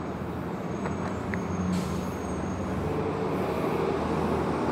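City bus engine running nearby over street traffic, growing louder near the end, with a short hiss just under two seconds in.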